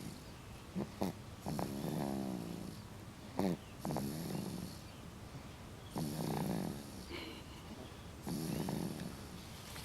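A six-month-old snoring in sleep: four drawn-out snores about two seconds apart, with a few short sharp sounds between them.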